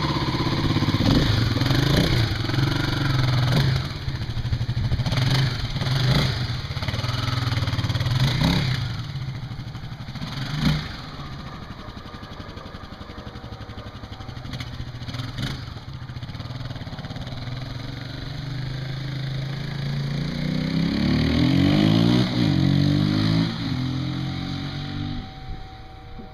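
Kawasaki KLX250SF single-cylinder four-stroke engine, airbox snorkel removed and not rejetted, revving hard through the gears as the bike accelerates away. It goes quieter with distance, then comes back louder and passes by near the end, its pitch dropping as it goes past.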